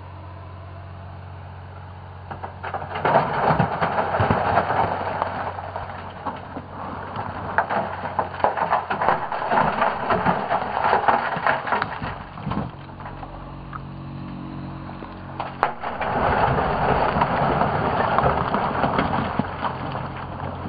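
Dump truck tipping a load of rock down a heap: a long clattering rumble of tumbling, crashing stones. It pauses about halfway with the truck's engine running, then comes a sharp crack and a second rush of rock crashing down.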